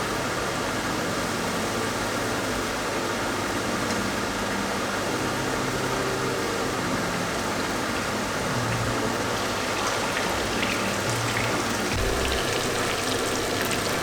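Chicken frying in a pan, a steady sizzle with some crackling toward the end.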